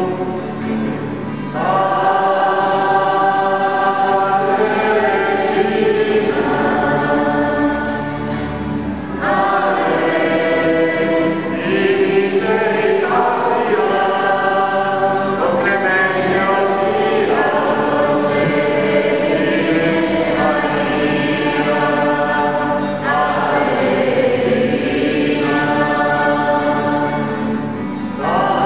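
Many voices singing a hymn together, in held phrases broken by short pauses for breath.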